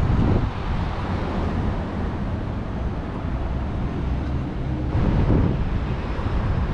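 Wind buffeting the microphone over steady outdoor street noise, with a louder gust about five seconds in.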